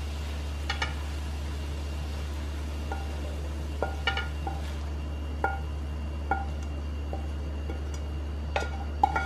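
Frying pan and wooden spatula clinking against a ceramic dinner plate while scrambled eggs are pushed off the pan: about a dozen light clinks, each with a short ring, scattered irregularly over a steady low hum.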